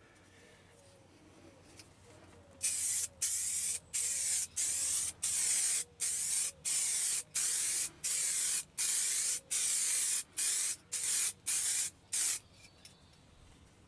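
Aerosol spray can of blue candy paint hissing in a rapid series of short bursts, about two a second, as a coat is laid onto a helmet. The spraying starts about two and a half seconds in and stops shortly before the end.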